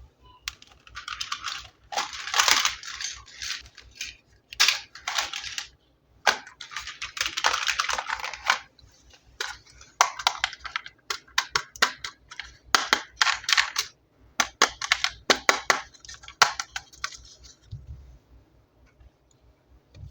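Plastic toy packaging being handled: crinkling and rustling in bursts, broken up by runs of sharp clicks and taps, thickest in the second half.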